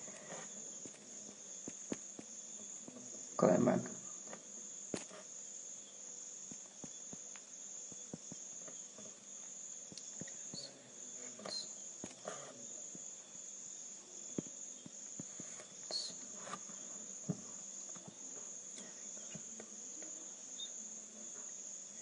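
A steady high-pitched trill runs under faint room tone, with scattered faint clicks and one short louder burst about three and a half seconds in.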